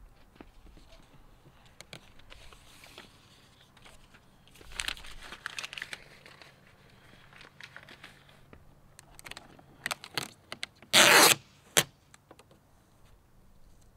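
Adhesive vinyl wrap film crinkling as it is handled and peeled back off chrome window trim, lifted to reposition it and clear a wrinkle. A short, loud tearing sound comes near the end.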